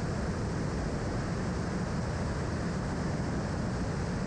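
Light aircraft in flight: a steady, even drone of engine and airflow noise, heaviest in the low end.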